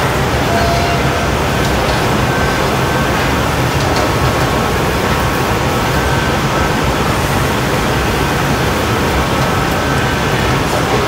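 Steady, loud roar of a glassblowing hot shop: gas burners of the glory hole and furnace running together with ventilation fans, with a low hum underneath.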